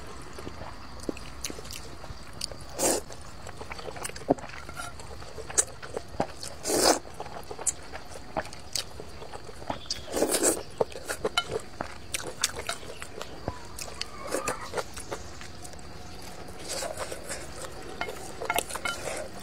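A person eating thick noodles: three louder slurps spread through, with wet chewing and many small clicks and smacks in between.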